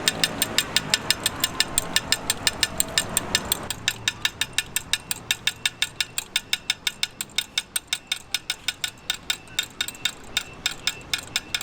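Rapid, perfectly regular mechanical clicking, about five clicks a second, like a ratchet: the rice cake stall's signature 'strange sound'. A murmur of voices underneath drops away about four seconds in.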